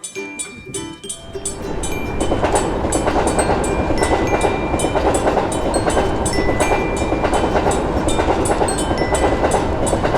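Train passing a level crossing: rail and wheel noise swells about a second and a half in and stays loud, with clickety-clack. A rapid, even ticking runs through it.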